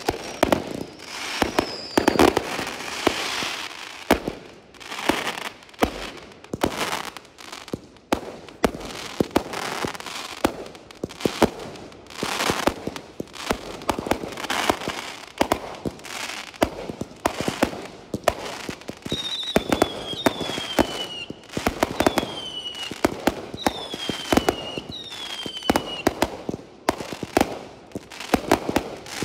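Fireworks display: a rapid run of bangs and crackling bursts. About two-thirds of the way in come five short whistles, each falling in pitch.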